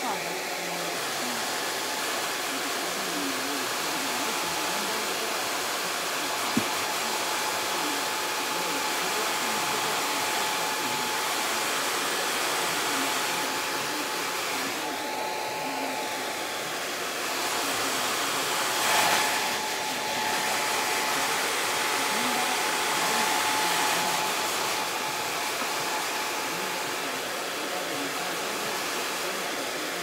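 Handheld hair dryer blowing steadily on a toy poodle's coat, its motor giving a faint steady whine under the rush of air. The air noise swells briefly about two-thirds of the way through.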